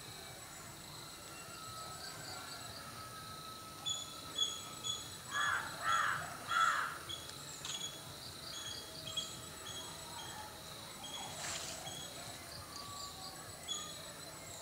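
Crows cawing, three loud caws in quick succession about halfway through, over short high chirps that repeat throughout and a faint steady high whine.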